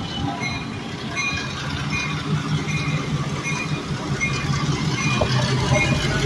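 EMD MP15AC diesel switcher locomotives passing close at low speed, their 12-cylinder diesel engines running with a low drone that grows louder partway through. A short high ringing note repeats a little more than once a second over the train noise.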